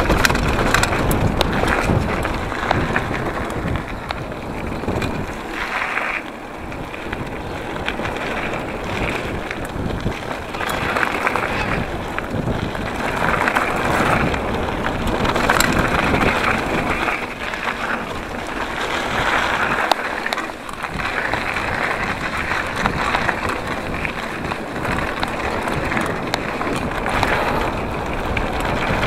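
Giant Trance 3 27.5 full-suspension mountain bike ridden fast down a dirt trail, heard from the bike: knobby High Roller II tyres hissing and crunching over dirt and leaf litter, with the bike rattling and clicking over bumps. Wind buffets the microphone, and the noise swells and eases as the speed changes.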